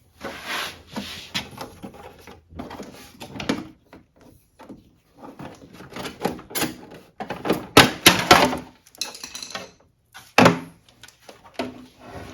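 Plastic front control panel of a Goldstar dehumidifier being pried off its snap clips: irregular scraping and sharp plastic clicks as the clips give.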